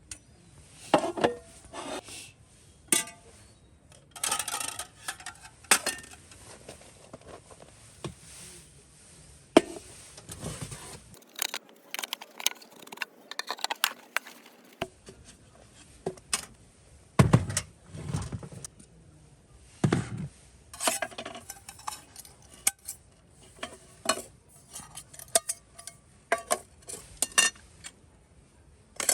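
Dishes and cutlery clinking and clattering in irregular knocks and taps, as camp cookware and utensils are handled during a meal.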